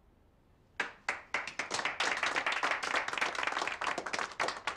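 A small group of people applauding: a short hush, then a few single claps about a second in that quickly build into steady clapping from several pairs of hands.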